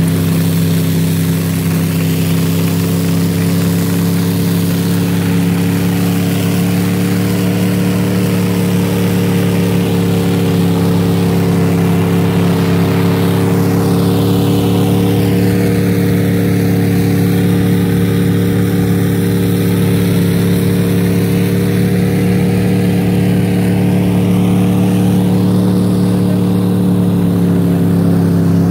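Snowcat engine running at a steady pitch as the tracked over-snow vehicle travels along a snowy trail, heard from aboard; the pitch dips slightly near the end.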